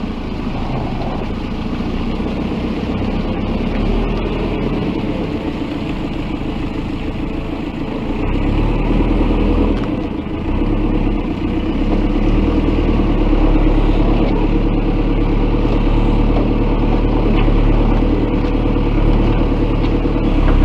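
JCB backhoe loader's diesel engine running steadily, getting louder about 8 seconds in and again about 12 seconds in.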